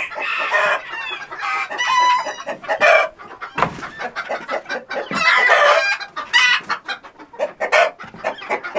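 Chickens squawking and clucking in irregular bursts, loud and close, as roosting birds are disturbed and grabbed off the roost at night.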